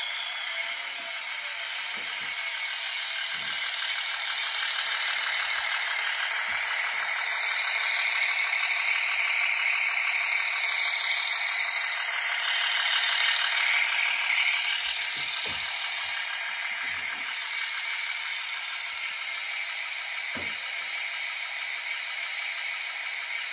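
Model railway railcar (littorina) running along the track: a steady mechanical rattling whir of its motor, gears and wheels, louder in the middle as it passes close. A few faint low knocks sound along the way.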